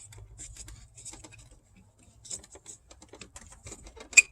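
Small plastic clicks and scrapes of a headlight low-beam bulb and socket being twisted loose from the housing, with one sharp click near the end.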